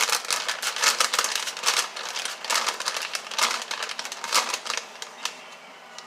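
A paper microwave bag of hard, dried pork-rind pellets being shaken over and over, the paper crinkling and the pellets rattling inside, stopping about five seconds in.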